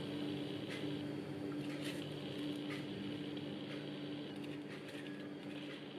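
Quiet room tone with a steady low hum and a few faint soft clicks as sliced apples are picked from a glass bowl and laid on raw pie dough.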